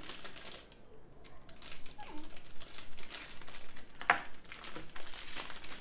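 Foil blind-bag wrapper crinkling and rustling in the hands as it is opened, with one sharper crackle about four seconds in.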